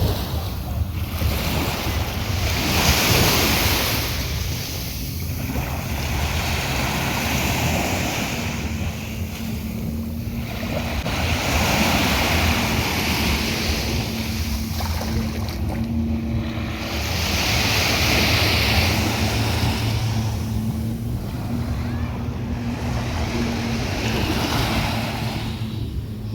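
Sea waves breaking and washing in, swelling and fading about every five seconds, with wind buffeting the microphone. A steady low hum runs underneath from about a third of the way in.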